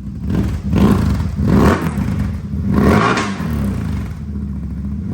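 CFMOTO ZFORCE 950 Sport side-by-side engine revved through its exhaust in three quick throttle blips, then settling back toward idle.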